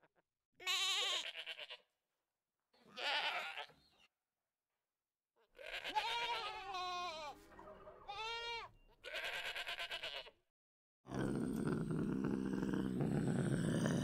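Domestic goats bleating: a series of wavering, pitch-gliding bleats, a few overlapping as more than one goat calls. From about eleven seconds in, a continuous low sound of another kind takes over.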